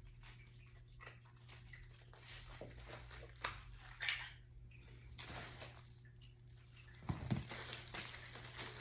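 Faint plastic clicks and rustles of a small remote control being handled and its battery compartment opened, over a steady low hum, with a louder thump about seven seconds in.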